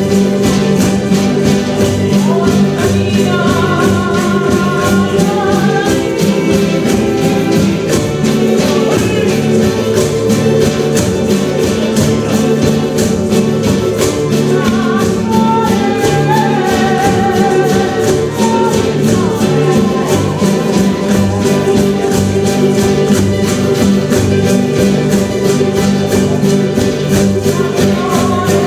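A woman singing a folk song over sustained instrumental accompaniment, with a steady rhythmic scraping from a scraper rubbed with a stick.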